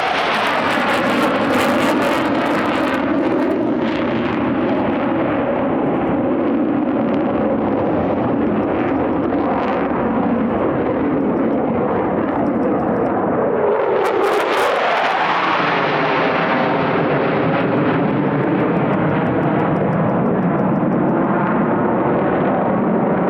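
F-15E Strike Eagle jet engines running continuously and loudly as the jets fly low. About fourteen seconds in one passes close by, its pitch sweeping downward as it goes past.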